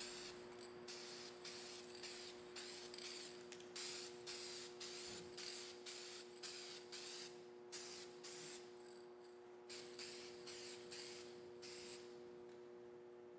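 UV headlight clear coat sprayed from a spray can in a quick series of short hissing bursts, light coats going onto a headlight lens; the bursts stop about twelve seconds in. A faint steady hum underneath.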